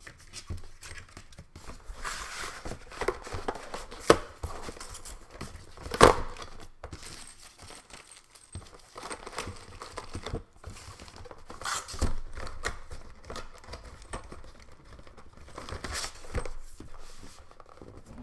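Packaging being unwrapped and handled: crinkling and tearing rustles with irregular clicks and knocks, the loudest about 6 seconds in.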